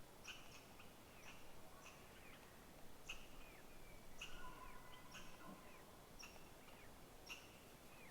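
Faint chirps of small birds, short calls repeated every half second or so, some sliding down in pitch, over quiet outdoor background.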